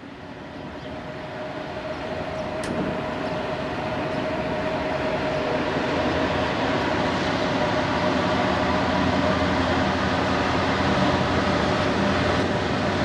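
A lash-up of Union Pacific GE diesel freight locomotives led by an AC44CW approaching, the engines' drone growing steadily louder as they near. Mixed with it is the rumble of freight hopper cars rolling by on the next track.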